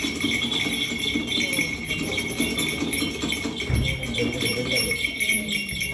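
Steady jingling and rattling, like small bells shaken in music, with a dull thump a little under four seconds in.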